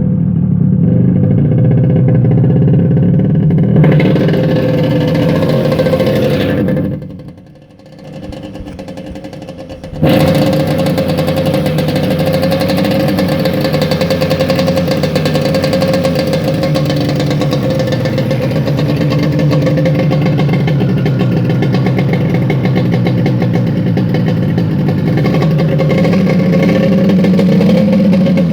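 Hydro Force 260cc surf jet engine running, dying away about seven seconds in and starting up again abruptly about three seconds later, then running steadily.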